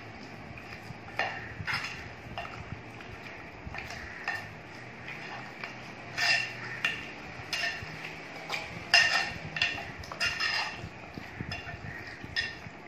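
Mutton pieces being mixed by hand with yogurt and spice paste in a stainless steel bowl for marinating. The hand and meat knock against the steel in irregular light metallic clinks, a few at a time.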